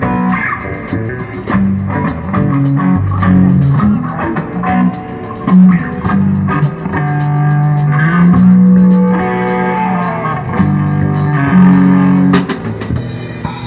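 Live rock band playing an instrumental passage with no vocals: electric guitar, bass guitar and drum kit. Near the end the cymbals die away.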